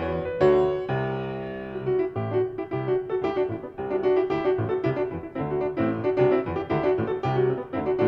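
Grand piano played solo: quick, dense chords over a steady repeated middle note, with one chord held and left to fade about half a second in.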